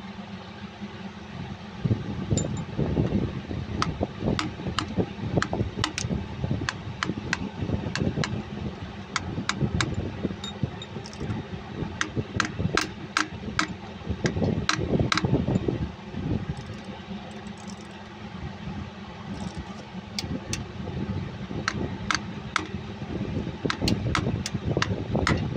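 Irregular sharp metallic taps and clicks, at times several a second, as a new front crankshaft oil seal is worked and tapped into its housing on a Cummins KTA50 16-cylinder engine. Under them is a low rumble that swells and fades.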